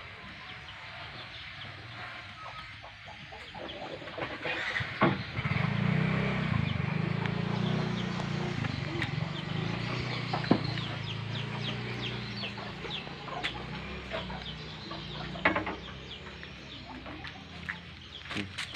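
Chickens clucking, with a low steady hum coming in about five seconds in and a few sharp knocks.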